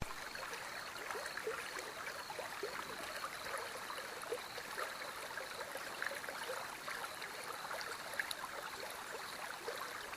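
Small seasonal creek running after heavy rain: water babbling over the ground in a steady rush, with many small gurgles and splashes.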